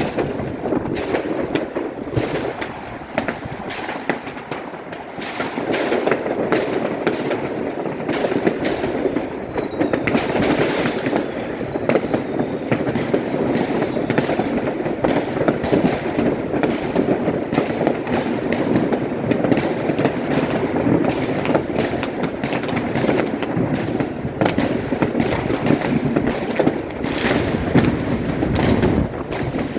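Fireworks going off continuously, a dense, irregular barrage of bangs and crackles with no let-up, and a faint falling whistle about ten seconds in.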